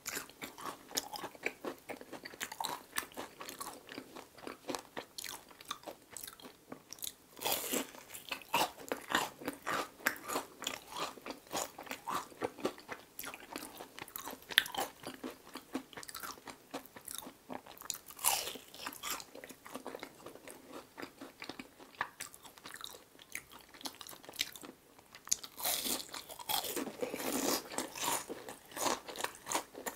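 Close-up eating sounds of deep-fried shrimp toast (menbosha): crisp crunches from the fried bread crust as it is bitten and chewed, with wet chewing in between. Louder bursts of crunching come in clusters, notably a few seconds in and near the end.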